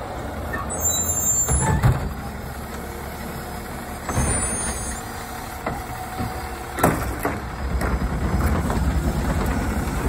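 Autocar ACX Labrie Automizer side-loading garbage truck running while its automated arm grabs a trash cart, lifts it and tips it into the hopper, then lowers it. Several knocks as the arm handles the cart, the sharpest about seven seconds in as the cart is shaken out at the top.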